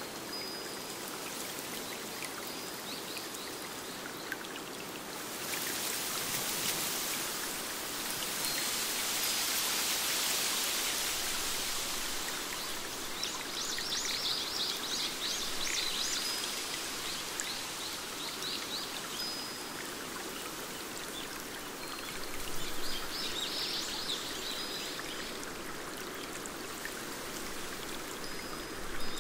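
A forest stream rushing steadily over rocks, swelling louder for several seconds about six seconds in. Small birds call above it, with short high whistles and a few rapid trills.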